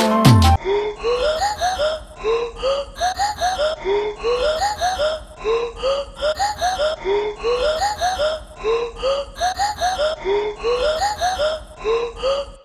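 A looped soundtrack sample: groups of three or four short rising, voice-like squeaks, repeated about every 1.2 seconds for about ten cycles. It cuts off abruptly at the end.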